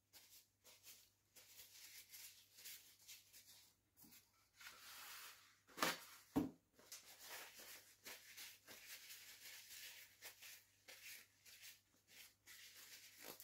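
Faint rustling and crinkling of a paper towel as oily hands are wiped, with a couple of brief louder crinkles about six seconds in.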